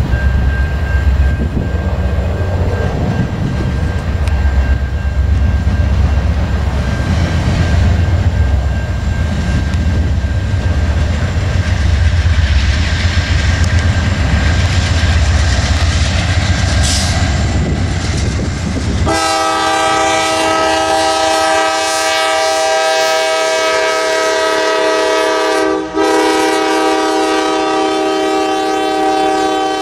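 Low, heavy rumble of a passing freight train, then about two-thirds of the way in a diesel locomotive's air horn starts suddenly and blows one long, steady chord with a brief break a few seconds after it begins.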